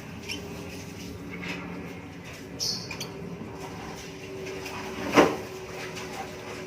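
Scattered light clicks and a brief high scrape, then one louder knock about five seconds in, over a steady low hum.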